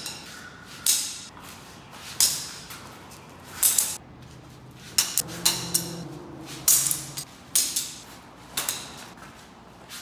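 Polycarbonate balisong handles thrown hard against concrete: about ten sharp clacks and bounces, roughly one a second, each echoing off the bare concrete of a parking garage.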